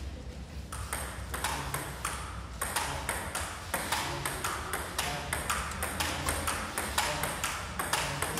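Table tennis rally: the celluloid ball clicking sharply off the rubber paddles and the Donic table top in a steady back-and-forth, about three hits a second, starting just under a second in.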